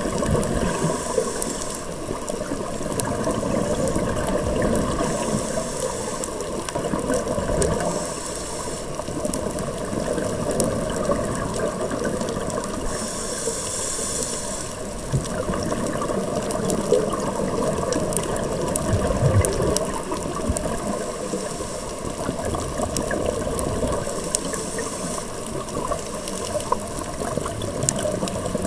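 Underwater sound of a scuba diver's regulator breathing: a hissing inhalation every few seconds and bubbling exhalations, over constant crackling.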